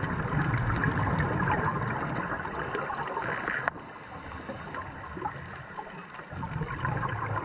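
Underwater bubbling and rumbling of a scuba diver's exhaled breath through the regulator, which cuts off suddenly about three and a half seconds in and starts again near the end, the rhythm of breathing on scuba.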